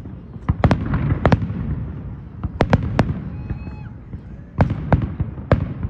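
Fireworks display: aerial shells bursting in sharp bangs, about nine of them in quick clusters of two or three, over a steady low rumble.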